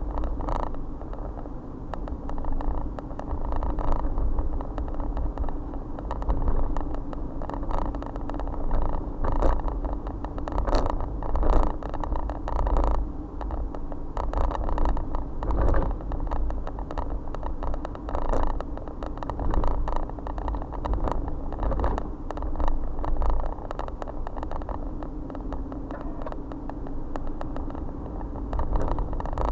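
Car driving along a town road, heard from inside the cabin: a steady rumble of tyres and engine with a low hum, broken by frequent irregular knocks and rattles.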